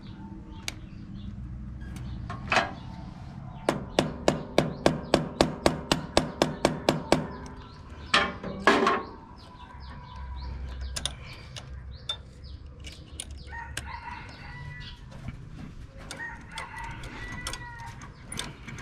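Hand tools working on a tractor's diesel injection pump fittings: a run of about fifteen even metal clicks, roughly four a second, a few seconds in, then a louder scrape. A rooster crows twice in the background near the end.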